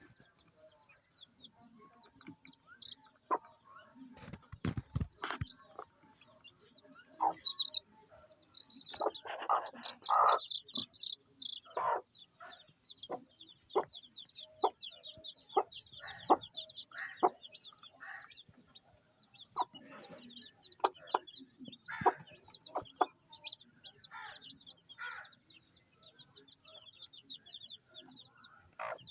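Baby chicks peeping almost without pause in high, quick cheeps, while a hen clucks over them in short, sharp calls, loudest about nine to eleven seconds in. A few low knocks come about four to five seconds in.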